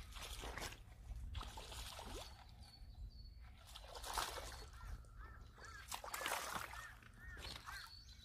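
A hooked largemouth bass splashing at the water's surface as it is reeled in to the bank, with crows cawing several times in the background.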